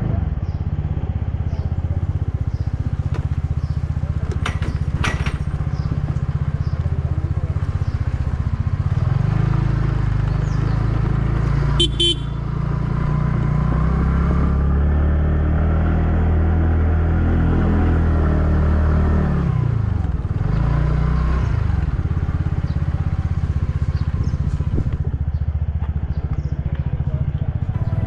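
Motorcycle engine running under way, its note climbing steadily as it speeds up, then dipping and climbing again about two-thirds of the way through. A brief sharp sound cuts in about twelve seconds in.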